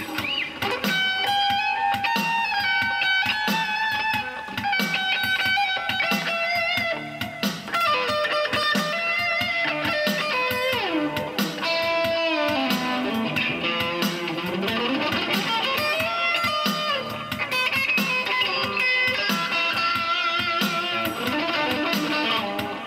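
Slow shuffle with electric guitar playing lead riffs over a steady beat: held notes, notes bent up and down in pitch, and quick runs.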